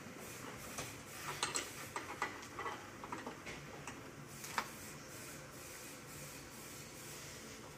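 Scattered light clicks and ticks of a hand tool being worked on the bolts of a truck cab's visor and mirror mounts, in irregular little runs that stop about halfway through, over faint room hiss.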